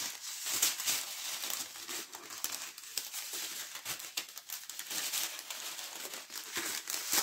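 Small clear plastic bags of diamond-painting rhinestones crinkling as they are handled: an irregular run of crackles.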